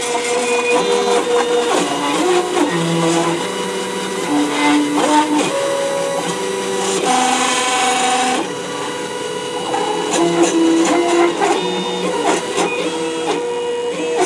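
Stepper motors on a homemade CNC router driving the X and Y axes through a toolpath. Their whine jumps to a new pitch every half second to a second as the speed and direction change, with clicking from the frame's loose screws, which are not yet locked with Loctite.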